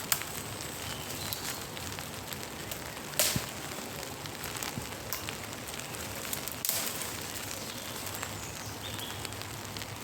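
Steady rain pattering, with scattered sharp ticks of drops and one louder crack about three seconds in.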